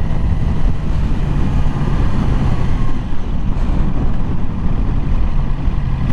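2020 Yamaha R6's 599 cc inline-four engine running steadily under way, with no rising or falling revs, mixed with wind rush.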